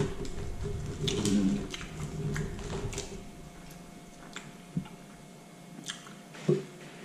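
Close-miked eating: chewing with wet mouth clicks and lip smacks scattered through, and a low, muffled mouth-full sound in the first three seconds.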